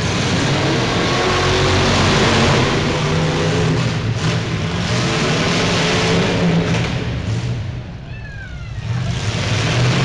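Engines of battered demolition derby cars running hard and revving as they manoeuvre on a dirt track. The sound dips briefly about eight seconds in, then picks up again.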